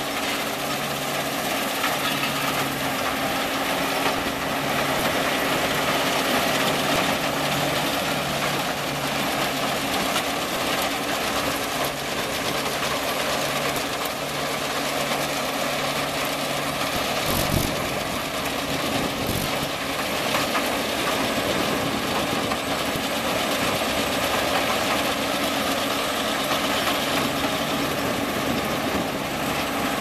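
Claas Mega 202 combine harvester working close by: its diesel engine and threshing machinery run steadily while the header cuts standing wheat. There is one brief thump a little over halfway through.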